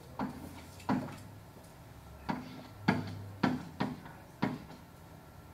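About seven sharp, irregularly spaced taps of something hard on a hard surface, over a low steady hum.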